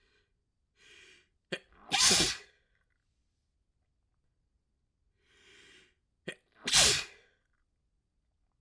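A person sneezing twice in a sneezing fit, the sneezes about five seconds apart. Each sneeze follows a drawn-in breath and a short catch.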